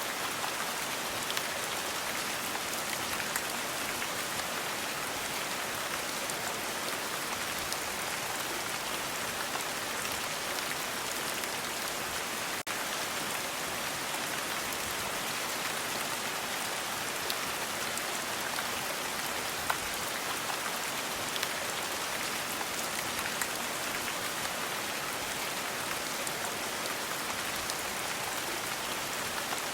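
Steady rain falling, an even hiss with scattered small drop ticks. The hiss dips for a split second about twelve seconds in.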